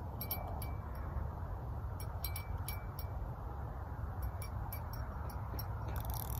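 A small bell tinkles in scattered light clinks, in small groups, over a low steady rumble.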